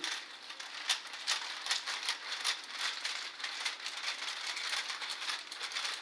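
The Stick massage roller's plastic spindles clicking and rattling as it is rubbed quickly back and forth across the lower back and glutes, in even strokes about two to three a second.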